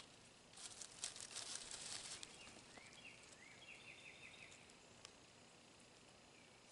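Dry bark chips and leaves rustling and crackling as hands stir them in the forge's fuel pile, for about two seconds starting half a second in. Then a bird gives a quick run of short rising chirps.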